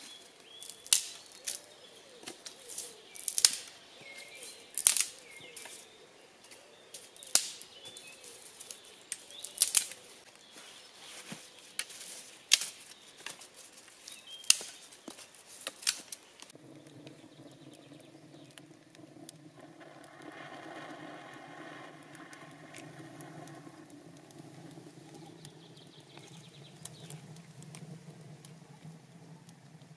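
Sharp chopping strikes of a blade into wood, irregular, about one every second or two, with faint birdsong behind. The strikes stop about halfway through, giving way to a steady low hum.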